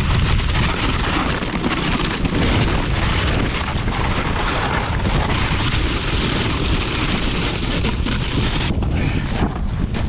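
Strong wind buffeting the microphone, under a steady scraping hiss of a snowboard sliding over hard, icy snow. The hiss stops about nine seconds in.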